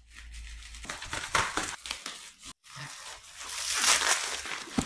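Bubble-wrap packaging crinkling and rustling as it is pulled open by hand. There is a brief break about halfway, and it is loudest near the end.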